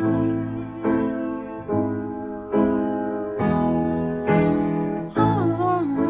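Demo recording of a song on piano: chords struck in a slow, even pulse, one a little under every second, with a voice sliding in near the end.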